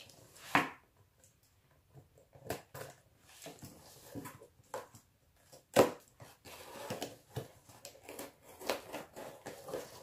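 Shipping box of books being torn open by hand: irregular rips, scrapes and rustles, with two sharp louder knocks about half a second in and near six seconds. It takes some effort to get open.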